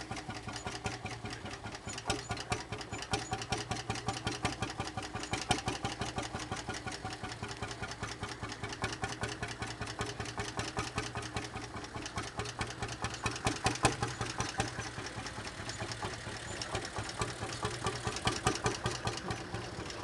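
Lanz Bulldog 25 PS tractor's 4.7-litre single-cylinder two-stroke hot-bulb engine idling, a steady run of rapid, even firing beats.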